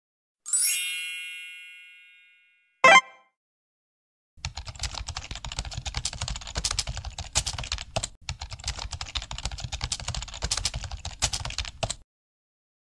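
Editing sound effects: a bright chime that rings out and fades over about two seconds, a short sharp pop, then a rapid keyboard-typing sound effect that runs for about eight seconds with a brief break in the middle.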